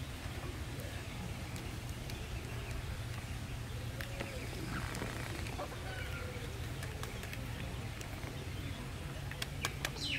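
Rural outdoor ambience: a steady low rumble with faint bird calls and faint distant voices. A few light clicks come near the end.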